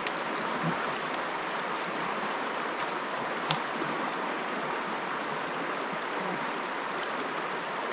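Steady rushing of a swollen, muddy river flowing past the bank, with a few faint clicks.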